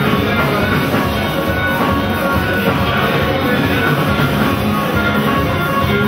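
Band music with drums and guitar, played loud and steady.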